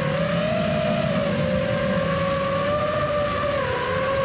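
FPV racing quadcopter's motors whining at a steady throttle, the pitch drifting slightly, over propeller and wind hiss.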